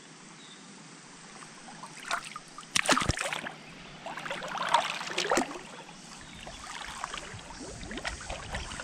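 Water splashing and running, with a few sharp knocks about two and three seconds in and a louder stretch of splashing midway.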